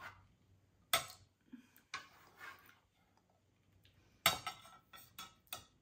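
Stainless steel bench scraper knocking on a wooden cutting board and clinking against a glass measuring cup as a spilled egg is scooped up and scraped in. There is a sharp knock about a second in, another at two seconds, then a quick run of clinks and taps near the end.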